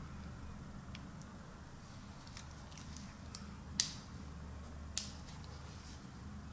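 Small metallic clicks from the stainless-steel bracelet clasp of a Rolex Deepsea being handled, with two sharper clicks a little more than a second apart, the first about four seconds in, as the folding clasp snaps.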